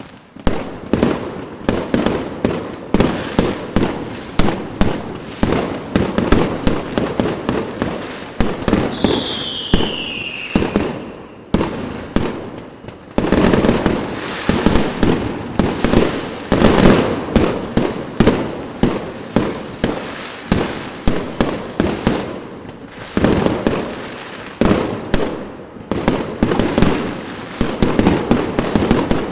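Fireworks going off in a dense, continuous barrage of bangs and crackles, several a second. About nine seconds in, a whistling firework gives a falling whistle, and the barrage briefly thins out a little after that before picking up again.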